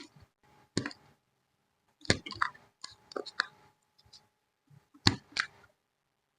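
Paper and crafting tools being handled: sharp taps and clicks with short rustles, in clusters about a second in, from about two to three and a half seconds in, and again around five seconds in.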